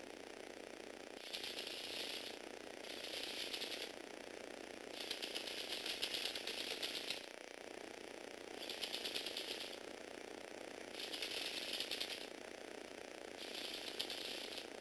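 A motorized Lego Technic walking vehicle's small electric motor whirring steadily through its plastic gears. Six times, for a second or two each, it breaks into a spell of rapid plastic clicking and rattling.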